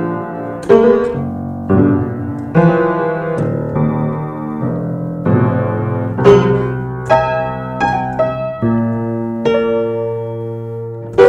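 Piano music: notes and chords struck roughly once a second, each ringing out and fading.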